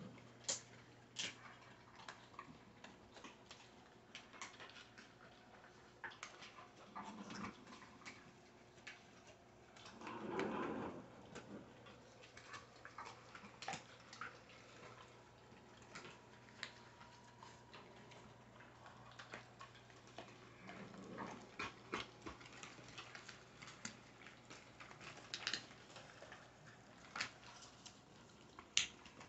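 Dogs and puppies gnawing on bully-slice chews: faint scattered clicks and crunches of teeth on the hard chews, with a few short dog whimpers.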